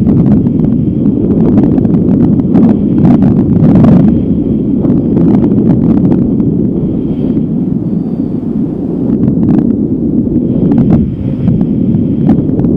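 Strong wind of about 11–12 m/s buffeting the microphone: a continuous loud, low rumble with scattered crackles and gusts.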